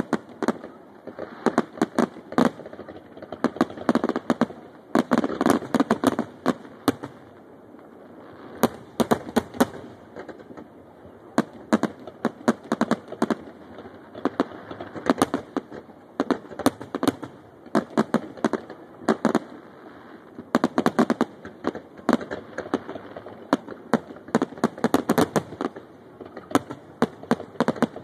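Aerial fireworks display: a barrage of sharp shell bursts and bangs, coming in dense clusters with short lulls between, each bang trailing off in echo.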